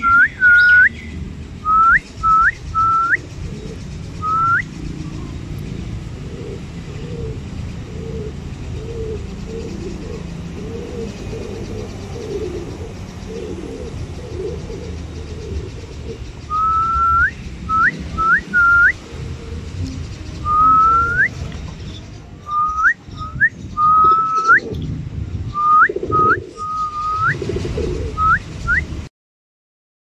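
Repeated short whistles, each holding a note and then sweeping sharply up in pitch, a handful near the start and a longer run in the second half, over a steady low rumble.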